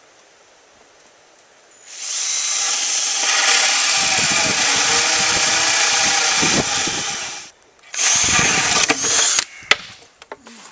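Power drill driving screws into scrap lumber: one long run of about five seconds, then a short second run, followed by a few sharp clicks.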